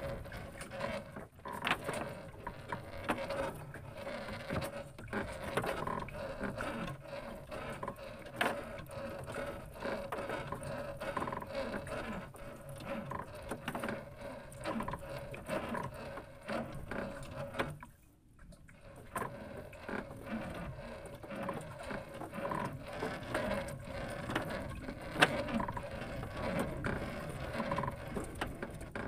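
Longline being hauled in by hand over the side of a small wooden boat: irregular, close clicking and rattling of line and hooks against the gunwale and a foam box, over a steady hum, with a short break about two-thirds of the way through.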